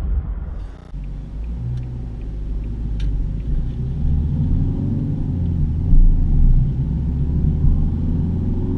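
Car engine and road rumble heard from inside the cabin while driving, with the engine's pitch rising as the car accelerates around the middle.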